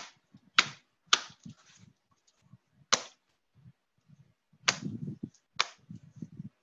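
About six sharp taps or clicks on a hard surface, unevenly spaced, with low handling and rubbing noise between them.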